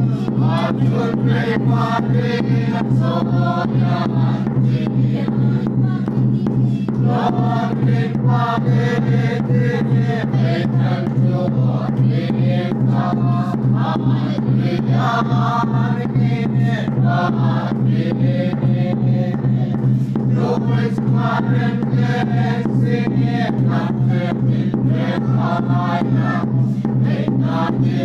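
A small congregation singing a hymn together, voices holding and changing notes in a steady sung line, over a constant low hum.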